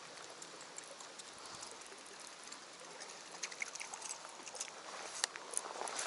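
Steady rain falling on the water around a boat, with scattered ticks of drops and a few sharper clicks and knocks near the end.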